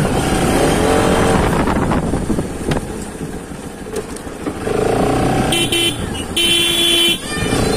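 Bajaj Pulsar RS 200 single-cylinder motorcycle running along a road, with steady engine and road noise. Near the end a vehicle horn sounds: a short toot, then a longer blast.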